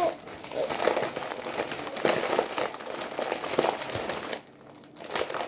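Candy wrappers and packets crinkling and rustling as a hand rummages around inside a reusable fabric shopping bag full of candy, the rustling briefly dying down about four and a half seconds in.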